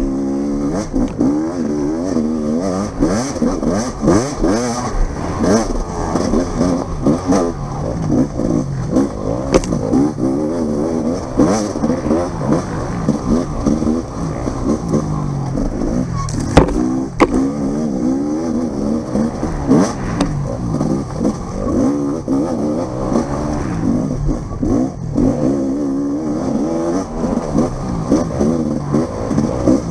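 Off-road dirt bike engine revving hard through a trail, its pitch climbing and dropping again and again as the throttle is worked. A couple of sharp knocks sound about halfway through.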